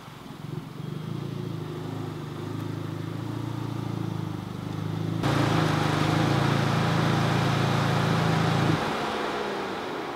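2015 Audi A3's engine running as the car drives slowly up the driveway, getting louder as it approaches, with a sudden rise in level about five seconds in. The engine is switched off just before nine seconds.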